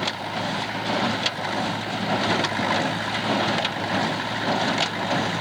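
Tractor-drawn small square baler running steadily, with a sharp knock a little more than once a second as its plunger packs hay into the bale chamber.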